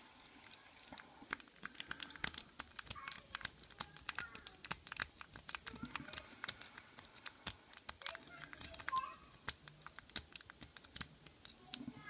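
Lock pick and tension tool working the pins inside an American 1100 series padlock: rapid, irregular small metallic clicks and scratches.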